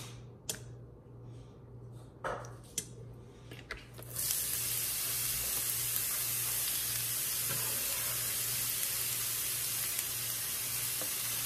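Diced red onion sizzling steadily in hot olive oil in an enamelled pan, the sizzle starting suddenly about four seconds in as the vegetables go in. Before that, a few light clicks and knocks as the oil is poured.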